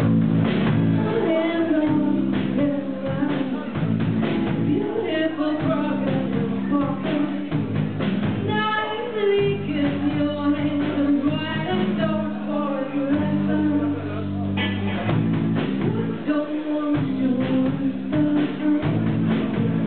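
Live band playing a song in a club: electric guitar, drum kit and sustained low keyboard or bass notes, with a woman singing into a handheld microphone.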